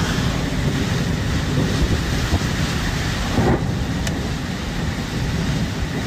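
Storm noise: wind buffeting the microphone with a steady rumble, over rain and vehicles driving through floodwater on a flooded road.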